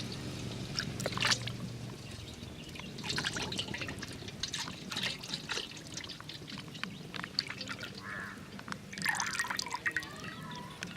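Cooking oil being poured onto marinating chicken pieces, with wet dripping and scattered small clicks as the food is handled.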